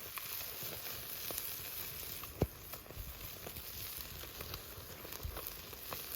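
Pacific saury sizzling as it grills over a wood campfire: a steady hiss with scattered crackles and one sharp pop about two and a half seconds in.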